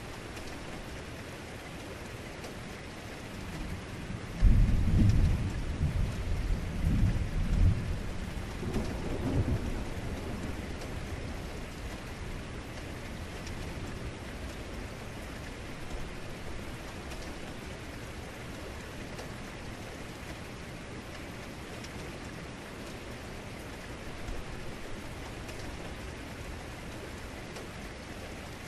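Heavy rain falling steadily, with a deep thunder strike starting suddenly about four seconds in. It rumbles in several waves for a few seconds before fading back into the rain.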